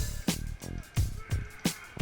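Music with a steady drum beat, about three strikes a second, and a funky instrumental part.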